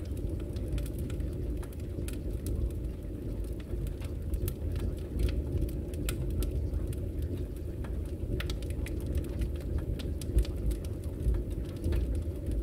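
Steady, muffled low noise with scattered faint crackles and ticks, an ambient masking track with no clear melody or voice.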